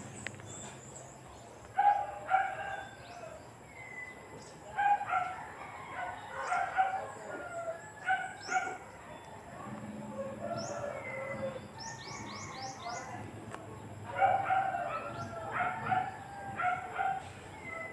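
Background bird calls: fowl calling in several bouts, with clucking and crowing-like calls, and a quick run of high chirps from small birds about two-thirds of the way through.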